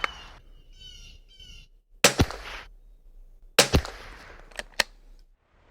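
Two shots from a Kimber .22LR rifle firing budget ammunition, about a second and a half apart, heard through electronic earmuffs that cut each report short. Two light clicks follow shortly after the second shot.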